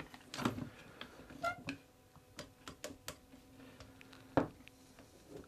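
Spreader clamp being ratcheted against a loose joint in a wooden wheel: scattered light clicks, a short squeak about one and a half seconds in, and a sharper knock a little after four seconds as the joint is forced apart.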